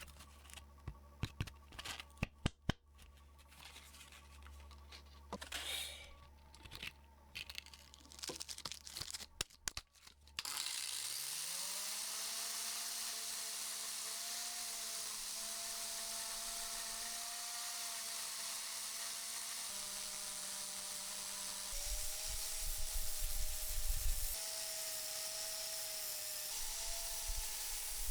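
Scattered clicks and knocks of tools being handled. About ten seconds in, an electric power tool's motor starts, its whine rising as it spins up, then runs steadily. Later its pitch shifts and a rough rubbing noise comes and goes, as when the spinning tool bears on metal.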